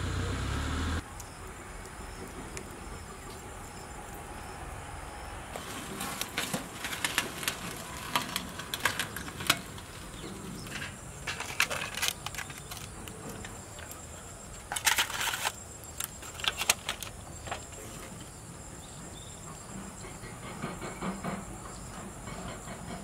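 Scattered clicks, taps and short scrapes of a metal spatula against a foil-lined tawa and aluminium foil containers as bread pizzas are lifted out. There is one denser scraping rustle about fifteen seconds in. Faint insect chirping runs underneath.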